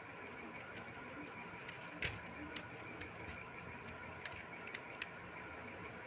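Single key presses on a cheap membrane keyboard fitted with soft squeaker pieces under the keycaps: a handful of separate clicks, the loudest about two seconds in, over a steady faint hum.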